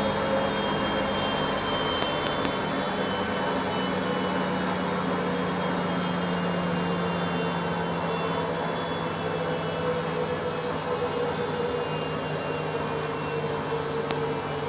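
Bosch Logixx 8 washing machine spinning at high speed on its 1400 rpm spin cycle, a loud steady rush with a whine that slowly falls in pitch.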